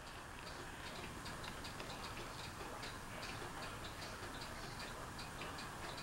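60-inch Hampton Bay Miramar ceiling fan coasting down after being switched off. Its still-turning blades give a faint rush of air, with a light ticking a few times a second.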